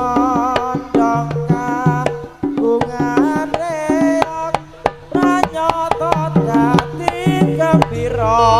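Live East Javanese jaranan gamelan music: kendang hand drums playing quick, busy strokes under a wavering high melody, with steady ringing gong tones beneath. A low pulsing tone comes in near the end.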